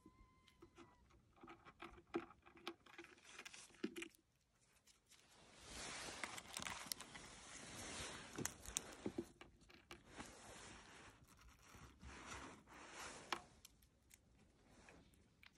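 Faint rustling and crinkling with scattered small clicks and crackles: hands and a phone being handled while feeding snack pieces to cats. The rustling is loudest for a few seconds in the middle.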